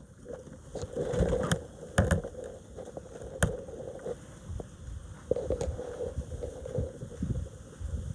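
Black metal latch on a weathered wooden gate being worked open by hand: several sharp clicks and knocks over low rustling and thumps.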